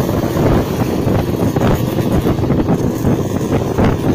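Yamaha RX-series two-stroke single-cylinder motorcycle engine running while riding, heavily masked by wind buffeting on the microphone.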